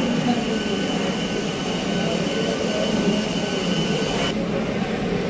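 Passenger train moving out along a station platform: a steady engine drone with a thin high whine. The high hiss drops away sharply about four seconds in.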